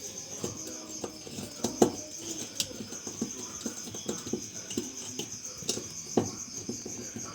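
Insects, crickets by their sound, chirping in a steady high pulsing trill, with scattered knocks and clunks throughout.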